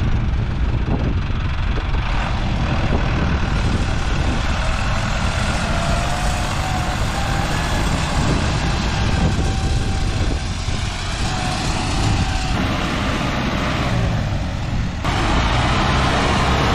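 Tractor engine running steadily with a low, even drone. The sound shifts abruptly twice in the later part.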